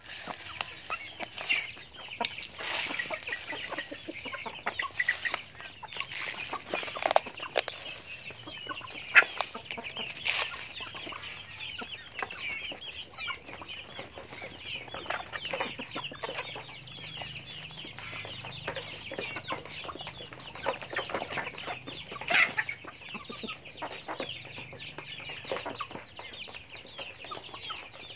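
A flock of domestic chickens clucking and calling continually while they peck at feed, with a few louder sharp calls standing out.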